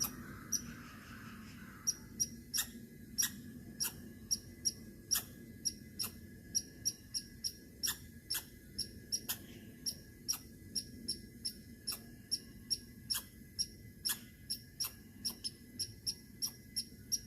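Squirrel calling: a long series of short, sharp chirps, about two or three a second, after a brief pause near the start.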